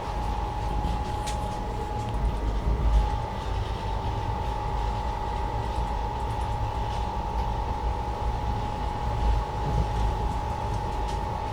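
Inside a running Indian Railways air-conditioned coach: a steady low rumble of the train in motion, with a steady tone and a few faint clicks.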